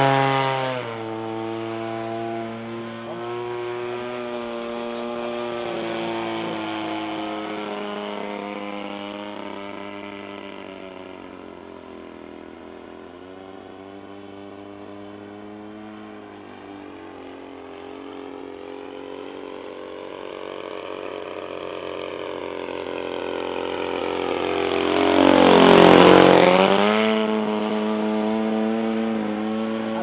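The 20cc RCGF two-stroke gasoline engine of a Seagull Decathlon 120 RC model plane in flight, a steady buzzing drone. It fades as the plane flies off, then swells in a close, loud pass about four seconds before the end, the pitch dropping as the plane goes by.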